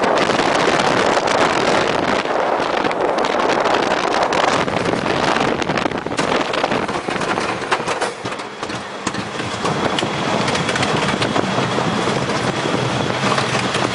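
Colossus wooden roller coaster train running fast over its wooden track: a loud, continuous rattle and clatter of wheels on timber. It eases for a moment about eight seconds in, and a faint high whine runs under it near the end.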